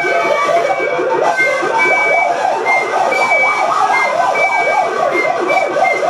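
Live experimental music: a fast, siren-like warbling pitch that swings up and down about four or five times a second, with short high steady notes sounding on and off above it.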